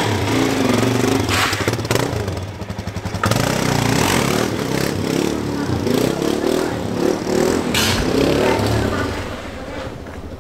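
Dual-sport dirt bike engine running and revving as the bike pulls away and rides off, growing fainter near the end, with a couple of sharp pops that the riders call backfiring.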